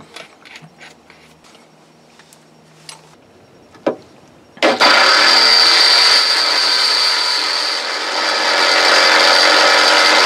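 A few light clicks and knocks as a drill chuck is tightened on a 12 mm high-speed steel bit. About four and a half seconds in, a corded electric drill starts and runs steadily with a high whine, boring a 12 mm hole through the steel deck of a narrowboat: quite hard going.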